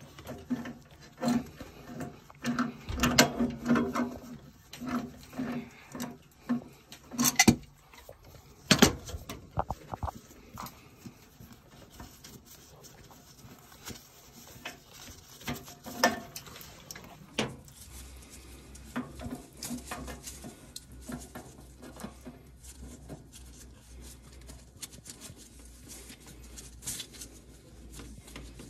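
Tongue-and-groove pliers gripping and turning a threaded brass fitting on boiler piping: creaking squeaks, scraping and sharp metal clicks, busiest and loudest in the first nine seconds. Later come sparser, quieter handling clicks over a low hum.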